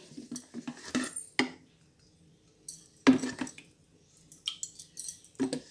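A handful of sharp clinks and knocks of kitchen utensils against a metal kadai while cooking oil is poured into the empty pan, the loudest knock about three seconds in.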